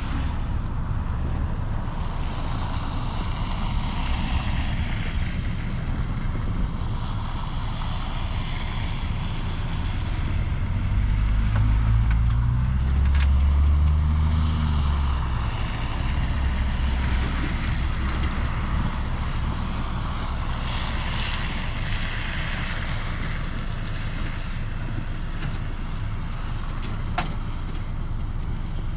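Truck engine running steadily in the snow, revving up for a few seconds about a third of the way in and then easing back, as it pulls a stuck vehicle out.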